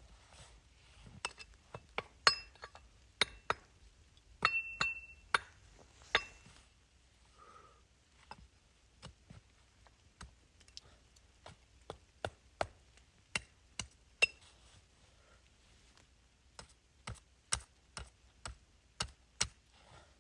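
Irregular sharp clicks and knocks of objects being handled, several with a brief metallic ring, one ringing longer about four and a half seconds in. A quicker run of clicks comes near the end.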